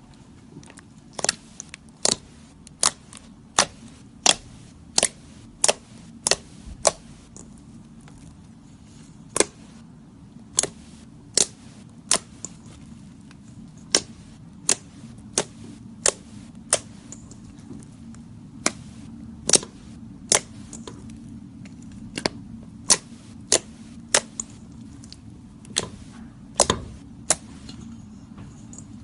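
Slime being squeezed and poked by hand, giving sharp clicking pops about once or twice a second over a low steady hum.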